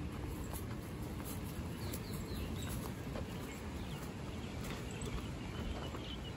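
Footsteps on a dirt path over a steady low rumble, with a scattering of faint light clicks.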